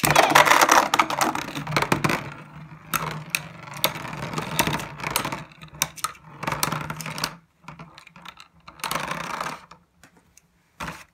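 Two Beyblade Burst spinning tops launched into a plastic Beystadium: a loud clatter as they land, then a steady whirring hum with rapid clicking as they spin, collide and scrape. The sound thins out as they slow, and both stop near the end.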